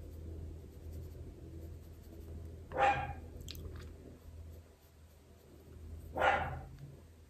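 A dog barking twice, about three and a half seconds apart, over a low steady hum.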